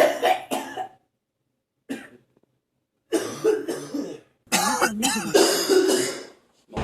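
A man coughing in several separate fits, with abrupt dead silences between them.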